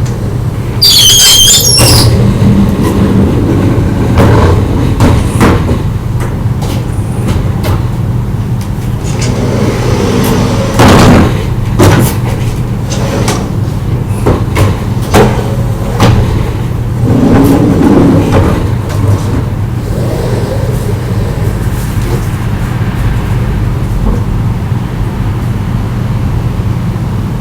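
Sliding wooden or metal rain shutters (amado) on a house's second floor being moved: a high wavering squeal about a second in, then scattered rattles and knocks, over a steady low hum.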